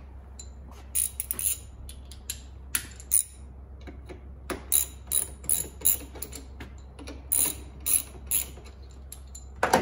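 Hand ratchet clicking in short, irregular runs as steel screws are driven into a soft aluminium blow-off valve housing held in a vise. A sharper knock comes near the end.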